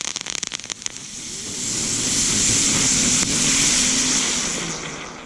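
Winda Ground Bloom Fountain firework burning: a quick run of crackles in the first second, then a steady high hiss that swells and fades away near the end.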